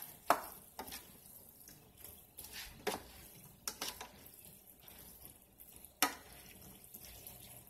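A spatula stirring and tossing vegetables and noodles in a stainless-steel sauté pan, knocking and scraping on the pan with about six sharp clacks at irregular intervals, the loudest near the start and about six seconds in. A faint sizzle runs beneath.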